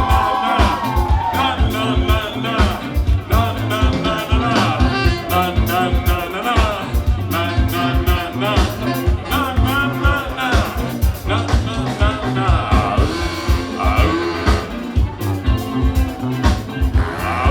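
Upbeat live party-band music with a steady drum beat, bass and horn lines.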